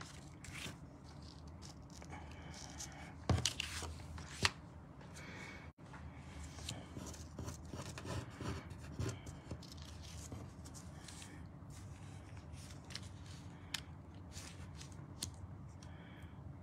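Paper and cardstock being handled and slid on a craft mat: light rustling and soft taps, with two sharper taps about three seconds in and again a second later.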